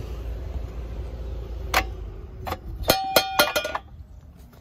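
The compressor of a Trane XL16i central air-conditioning unit hums without starting, which the technician puts down to the capacitor. About two seconds in there is a click, then a quick run of metallic clicks and clinks as the outdoor disconnect is pulled, and the hum stops.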